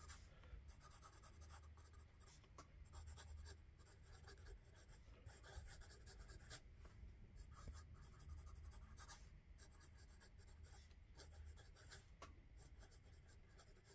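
Leonardo Vesuvio fountain pen's 14-carat gold medium nib writing quickly across Clairefontaine 90gsm paper: faint, irregular scratching of the pen strokes.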